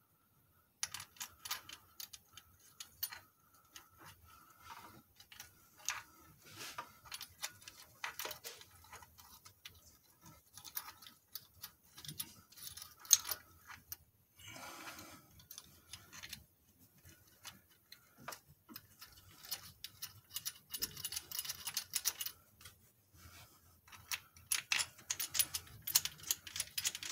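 Irregular small metallic clicks and clinks of rocker arms, pivots and bridges being handled and seated on the Jeep 4.0 straight-six's cylinder head, with a brief scuffing noise about halfway through.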